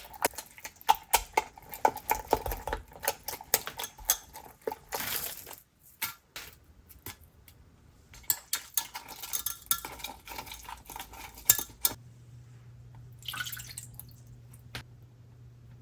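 Kitchen dishes and utensils clattering: many quick clinks and taps, with a short rush of noise about five seconds in. Near the end the clatter stops, leaving a low steady hum and one brief swish.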